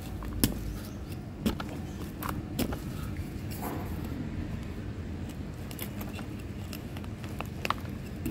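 A small metal hand weeder scratching and prying at hard-packed potting soil in a plastic tub to loosen it, giving scattered scrapes and clicks. A low steady hum runs underneath.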